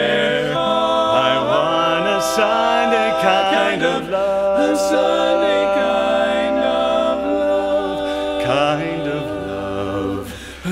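Male barbershop quartet singing a cappella in four-part close harmony, holding long chords that shift several times. The sound dips briefly near the end before the next phrase.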